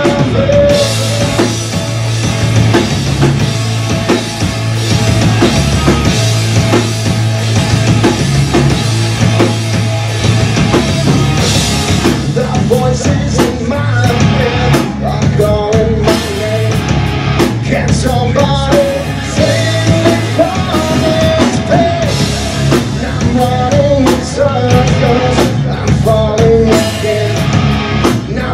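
Live rock band playing loudly: electric guitar, electric bass and drum kit.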